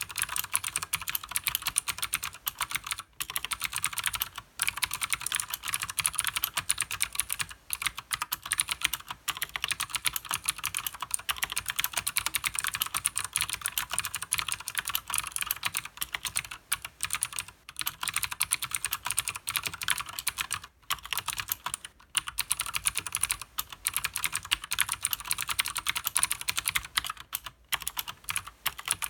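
Fast continuous typing on a Leopold FC900R mechanical keyboard with Cherry MX Blue switches and PBT keycaps: a dense stream of sharp, high clicks from the clicky switches, broken by a few short pauses.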